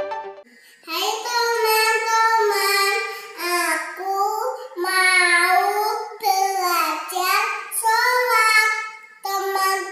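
A four-year-old girl's voice chanting Arabic prayer recitation in a drawn-out, sing-song melody, phrase after phrase with short breaks between them.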